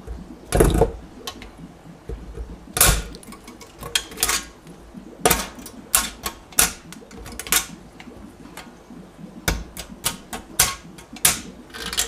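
Handsaw cutting through black plastic egg crate grid: a series of irregular sharp clicks and short rasps, roughly one or two a second, as the teeth catch and snap through the plastic strips.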